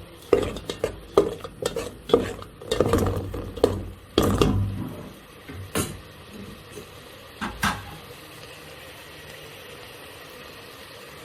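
A kitchen utensil clinking and scraping against a cooking pot in a quick run of knocks over the first five seconds, then two more knocks, as food is stirred. A steady faint hum follows.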